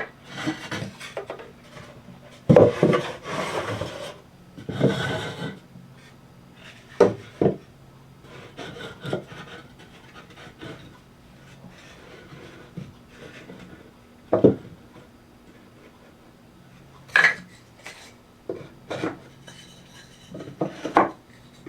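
Cedar fence-picket boards being handled and flipped over on the bench. There are a few seconds of wood sliding and scraping near the start, then single wooden knocks every few seconds as the pieces are set down and positioned.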